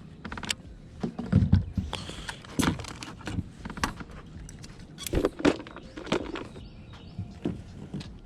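Irregular clicks, knocks and rustles of fishing tackle being handled in a kayak while re-rigging a line with a Texas rig.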